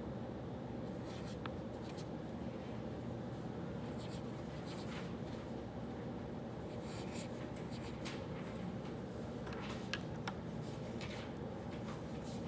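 Writing on paper, scratching in short runs of strokes a few seconds apart, over a steady low hum of room ambience.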